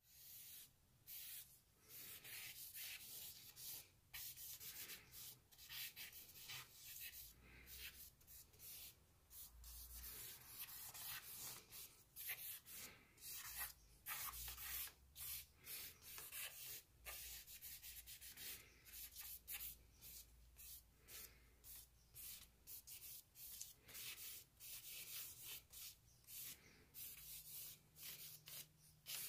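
Charcoal stick scratching across sketchbook paper in many quick, irregular strokes, faint.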